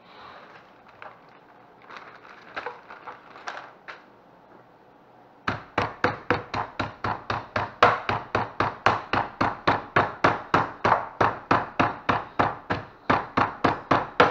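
Wooden rolling pin pounding a chicken breast flat through a plastic bag on a wooden cutting board: a fast, even run of blows, about four or five a second, starting about five seconds in. Before that, softer rustling of the plastic bag and a few light knocks as it is laid over the meat.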